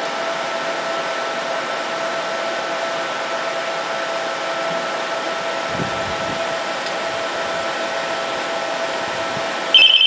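A 2002 TurboChef C3 microwave-convection rapid-cook oven running a cook cycle: a steady rush of blown hot air with a steady hum. Near the end a high electronic beep sounds as the cycle finishes.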